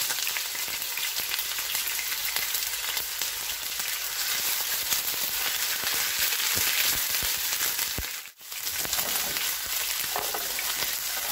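Garlic and ginger sizzling in hot oil with whole spices in a nonstick frying pan, stirred with a spatula. The steady crackling sizzle breaks off for a moment about eight seconds in.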